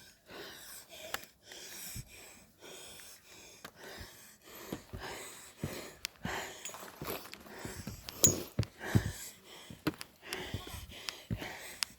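A man breathing hard and wheezing, out of breath from climbing mountain steps, with scattered sharp clicks and knocks.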